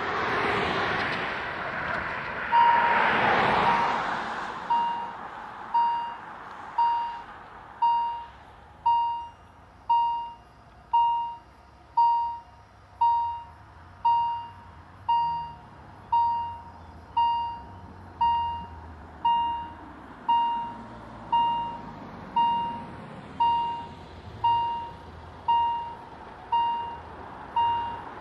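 Level-crossing warning bell ringing about once a second, each stroke sharp and quickly fading, warning of an approaching train as the barriers close. It starts a few seconds in, while a car drives past.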